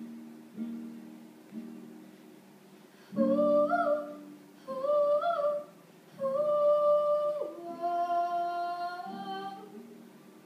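Acoustic guitar played in slow, evenly spaced chords, then a girl's voice joins about three seconds in with four sustained sung phrases, the last one gliding slowly upward, before the guitar carries on alone near the end.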